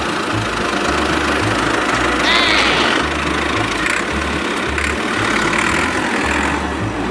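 Small electric motor of a miniature model tractor running steadily, with a short high warbling sound a little over two seconds in.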